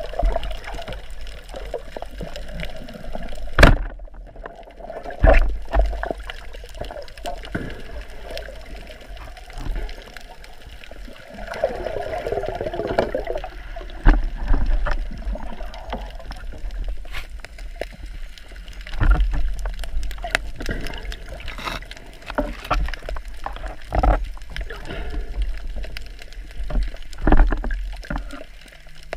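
Seawater sloshing and gurgling around the camera, with a low rumble and scattered sharp knocks and thumps.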